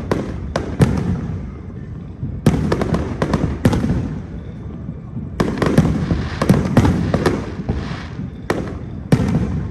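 Aerial fireworks bursting in quick volleys of sharp bangs, with crackling and rumble between the volleys; clusters of bangs come about every two to three seconds.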